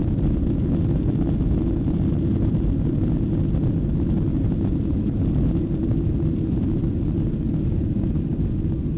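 Steady low rumble inside the cabin of a Boeing 737-800 rolling on the runway after landing, the sound of its engines and of the aircraft running over the pavement.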